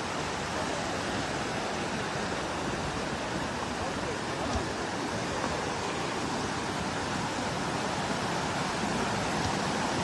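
Muddy floodwater rushing down a road and roadside channel: a steady rushing noise.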